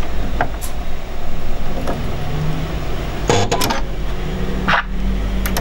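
Small metal clicks and taps of a sewing machine's presser foot and its screw being handled and tightened by hand: a few scattered clicks, with a louder cluster about three and a half seconds in, over a steady low hum.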